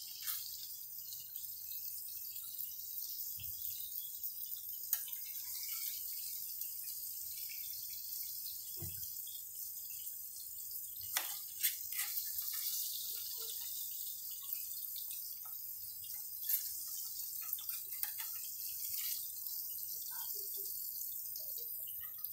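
Chicken pieces frying in hot oil in a nonstick pan: a steady sizzle, with a few clicks and scrapes of a metal spatula against the pan as the browned pieces are lifted out.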